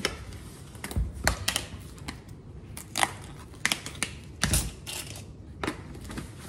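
A new canister of grated Parmesan cheese being opened: its plastic lid is pried and twisted off, then the seal under it is torn away, giving a string of irregular sharp clicks, cracks and crinkles.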